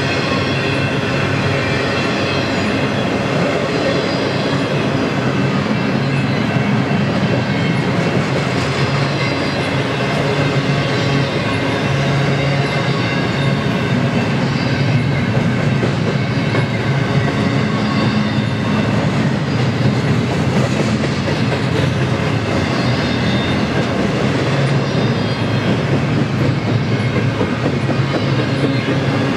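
Double-stack intermodal freight cars rolling past: steady loud rumble and clatter of steel wheels on rail, with thin steady ringing tones above it.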